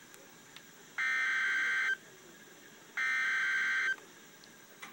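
Emergency Alert System SAME header: two harsh, buzzing two-tone data bursts, each about a second long and a second apart. This digital code announces an incoming tornado warning.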